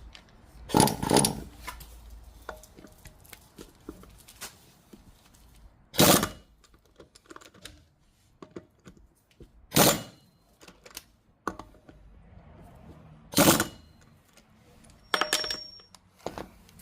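Tool work on a scooter's rear wheel during brake disc rotor replacement: five short, loud bursts a few seconds apart, with small metal clicks and clinks in between.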